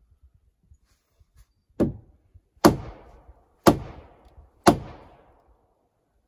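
Wooden mallet striking a peeled log porch rail, driving it into its post joint. There are four solid knocks about a second apart, the first lighter than the rest, each with a short ringing decay.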